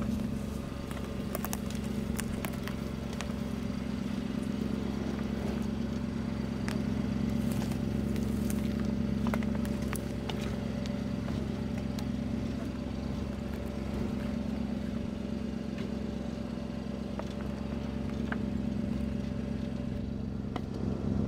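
Pickup truck engine running steadily at low speed as the truck crawls along a rough forest trail, with scattered sharp clicks and cracks from the tyres rolling over sticks and twigs.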